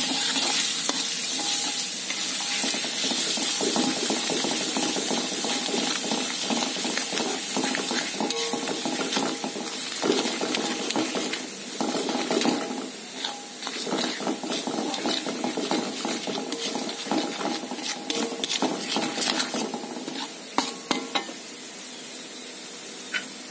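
Ground spice paste sizzling in hot oil in a wok, stirred with a metal spoon that scrapes and clicks against the pan. The sizzle eases off a little toward the end.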